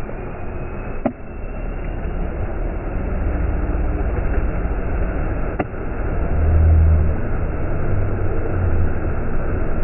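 Ford Ranger 2.2 four-cylinder turbodiesel engine pulling hard under load as the pickup churns through deep mud, its note swelling about six and a half seconds in. Two short clicks, about a second in and near the middle.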